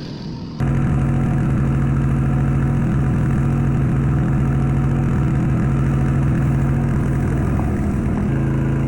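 An engine running steadily at idle, cutting in abruptly just under a second in and holding an even pitch throughout.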